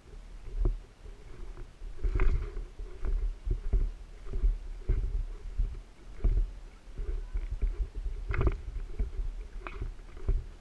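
Dull, irregular thumps and knocks from an airsoft sniper rifle with a mounted camera being carried at a walk, the footsteps and handling jolting through the gun. A steady low rumble runs underneath.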